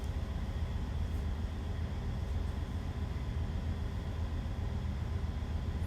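Steady low drone of running machinery, even and unbroken, with no distinct tool sounds over it.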